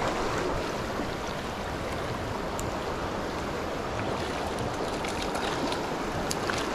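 Fast-flowing stream water rushing steadily, with a few faint clicks.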